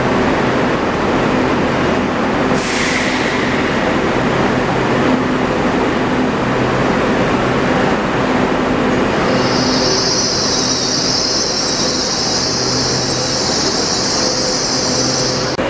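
GWR Hitachi Intercity Express Train moving slowly through the platform, running with a steady hum. A brief falling hiss comes about three seconds in, and from about nine seconds a steady high-pitched wheel squeal holds until the sound cuts off near the end.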